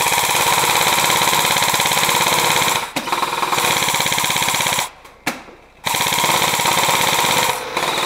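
Airsoft gun firing full-auto in three long rapid rattling bursts, broken by a brief pause about three seconds in and a longer one of about a second around five seconds in.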